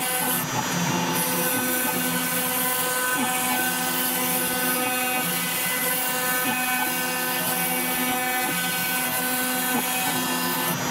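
CNC router spindle turning a 2 mm diamond-cut carbide cutter at about 20,000 rpm through 2 mm FR4 fibreglass board, with the dust extraction running. It makes a steady whine and hiss, and some of its tones shift now and then as the cut moves.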